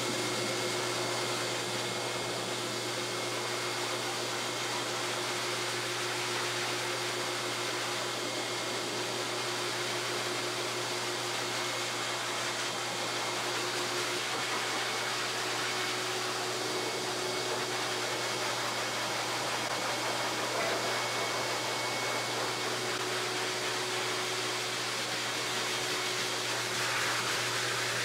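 High-velocity pet grooming dryer blowing a steady rush of air through its hose and nozzle into a wet dog's coat, with a faint steady whine under the air noise.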